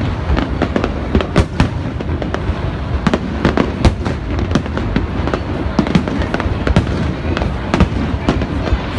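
Aerial fireworks display: a rapid, irregular run of shell bursts and bangs over a continuous low rumble.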